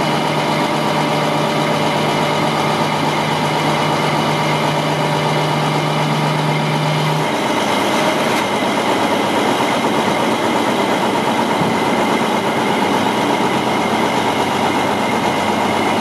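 Diesel engine of a 1995 Mack RD688S tri-axle dump truck running steadily while the hydraulic dump body is lowered. A steady low hum stops about seven seconds in, and the engine keeps running.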